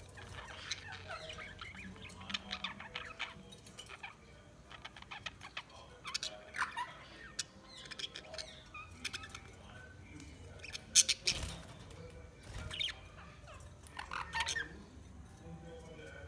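Budgerigars chirping and squawking in quick, irregular bursts, with a sharp, loud burst about eleven seconds in.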